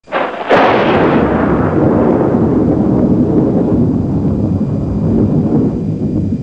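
Thunderclap: a loud crack about half a second in, then a long rolling rumble.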